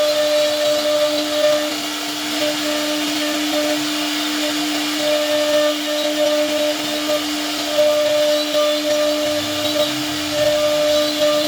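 CNC router spindle running at a steady high speed while cutting wood: a constant whine with a hissing cutting noise, and an upper tone that comes and goes as the bit bites.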